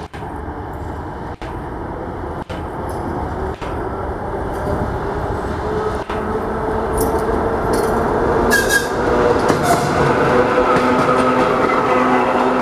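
Electric trains rolling slowly past at close range: a VL60PK electric locomotive, then an ER9E electric multiple unit. The rail noise grows steadily louder, with a few steady whining tones coming in during the second half, plus wheel clicks and a brief squeal.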